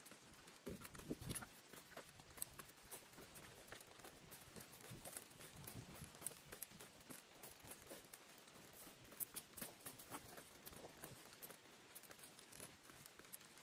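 Faint footsteps crunching on dry leaves and rock, with small taps from trekking poles, heard as an irregular scatter of soft clicks and crackles.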